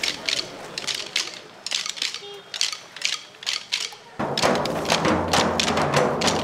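Wooden sticks knocking in an uneven beat, about three sharp knocks a second. About four seconds in, a louder, fuller sound with a low steady hum comes in suddenly, and the knocking carries on over it.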